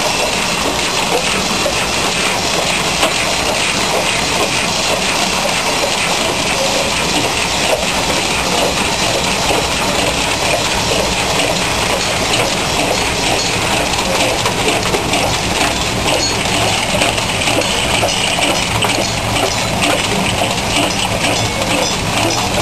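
A 16-nozzle rotary bottle filling machine running at speed: a steady mechanical clatter full of small rapid clicks and clinks, with no pauses.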